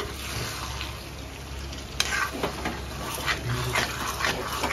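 Metal spatula stirring chicken curry in a kadai, scraping the pan over a steady sizzle as freshly added sour curd is mixed into the frying masala, with a sharp clink against the pan about two seconds in.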